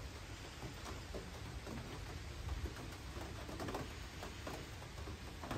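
Light rain pattering around a wooden trail shelter, a steady soft hiss dotted with scattered small drips.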